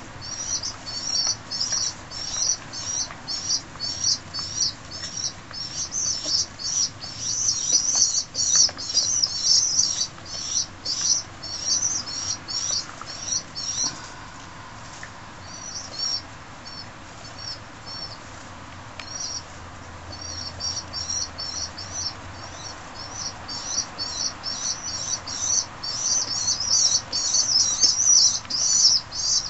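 Young feral pigeons (squabs) peeping in a fast string of short, high squeaks, about three a second: the begging calls of young pigeons. The peeps thin to a few faint ones about halfway through, then pick up again.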